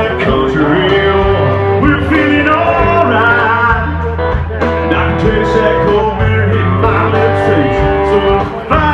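Country-style music with a singing voice and guitar, playing steadily.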